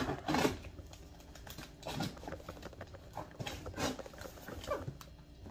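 Fingers picking at and peeling packing tape on a cardboard box, heard as a few short scratchy rips and clicks spread through the moment.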